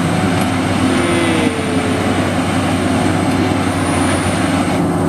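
Combine harvester's diesel engine and machinery running steadily under load.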